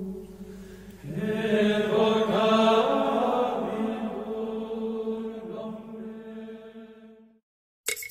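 Chanted singing over a held drone, the voices coming in about a second in and fading out near the end. After a brief gap, percussion-led music begins right at the close.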